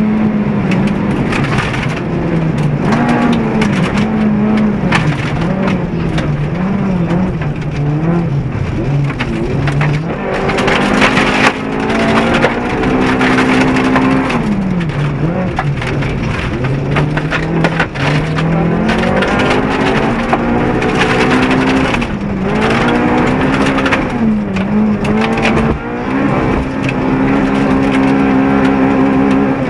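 Honda Civic VTi rally car's 1.6-litre four-cylinder engine at full effort inside the stripped cabin, its pitch climbing and dropping over and over through gear changes and lifts. Gravel clatters and cracks against the underbody throughout.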